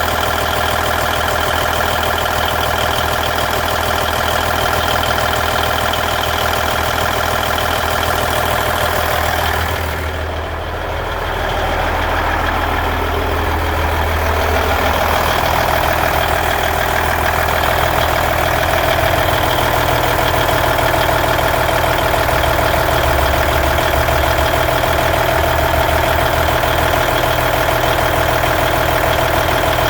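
Cummins N14 inline-six diesel engine in a 1999 Volvo VNL 610 truck idling steadily, with a brief dip in loudness and a shift in its tone about ten seconds in.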